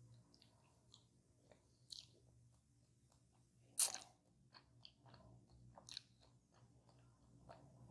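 Crisp pie crust crunching as it is bitten and chewed close to the microphone, with one sharp, loud bite about four seconds in and softer crunches around it.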